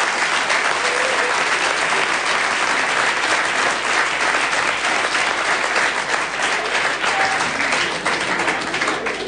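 Audience applauding steadily, the clapping thinning out near the end.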